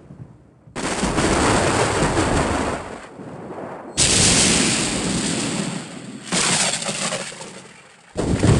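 Thunder: four sudden, sharp cracks, each rolling and dying away over a second or two before the next one strikes.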